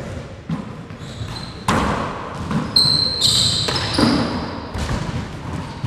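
Handball rally: the rubber handball is struck by gloved hands and smacks off the court walls and hardwood floor in a string of sharp, echoing impacts. Sneakers squeak on the wooden floor around the middle.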